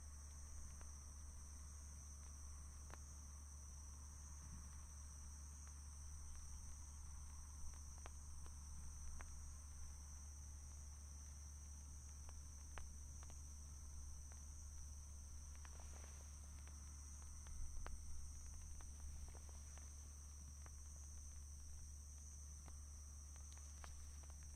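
Steady, even high-pitched chirring of night insects, with a steady low hum beneath it. A couple of faint thuds stand out, about eight and eighteen seconds in.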